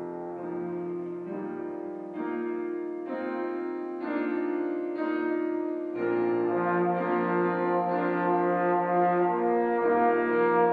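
Tenor trombone playing a slow, sustained melody, with grand piano accompaniment underneath. The notes change about once a second, and the music swells louder about six seconds in.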